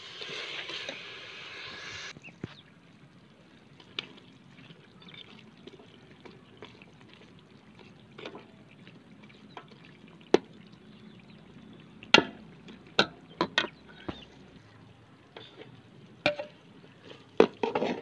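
Steel ladle stirring thick chicken karahi gravy in an aluminium pot: wet slopping with sharp clinks of the ladle against the pot, several in quick succession about two-thirds of the way through and again near the end. A steady hiss runs for the first two seconds and stops abruptly.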